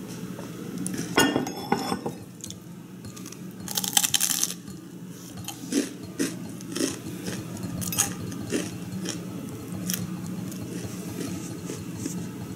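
A ceramic mug clinks down onto its saucer. Then crispy deep-fried bread is broken and bitten, with one loud crunch about four seconds in and small scattered crackles after it, over a steady low hum.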